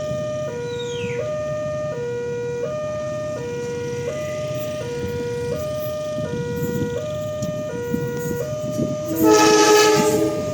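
Railway level crossing warning siren sounding a two-tone hi-lo alarm, switching pitch about every 0.7 seconds. Near the end an approaching train's horn blasts once for about a second, louder than the alarm.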